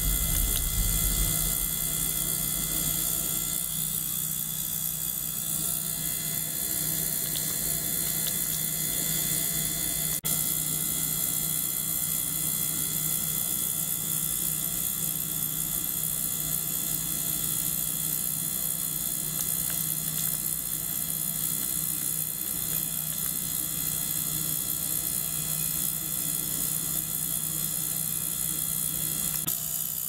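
Small circulation pump and tabletop ultrasonic cleaners running together: a steady electric whir and buzz with a high hiss over it. A single click about ten seconds in.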